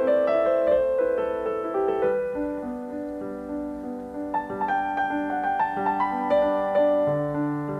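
Background piano music: a melody of single struck notes over sustained lower notes.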